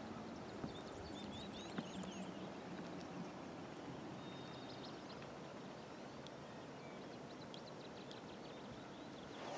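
Birds chirping and trilling, faint, over a steady low background hush.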